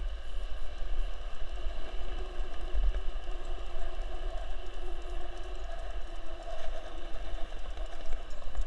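Skateboard wheels rolling over a concrete road: a steady rumble with a faint whirring tone that wavers in pitch.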